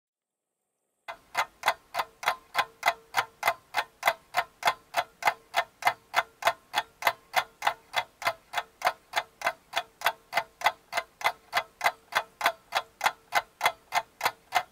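Clock ticking in a quick, even rhythm of about three ticks a second, starting about a second in, with a faint steady tone beneath.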